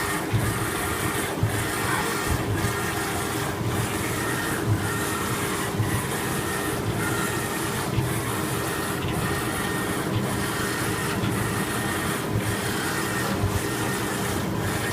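CO2 laser fabric-cutting machine running, with a steady mechanical hum and whir from its motors, fan and pump, and a brief regular dip about once a second as the cutting head works its pattern.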